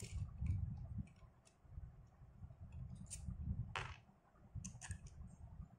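Spinning reel being taken apart by hand: scattered light clicks and handling of small metal parts as the rotor nut is worked loose with a tool and the rotor is lifted off the shaft.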